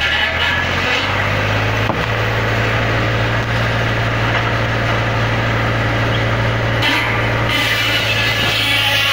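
Farm tractor engine running steadily at a fixed speed, powering a sawmill's saw bench, with one short knock about two seconds in.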